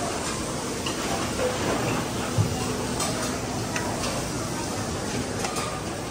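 Busy buffet restaurant: indistinct background chatter with dishes and cutlery clinking now and then, and a short knock about two seconds in.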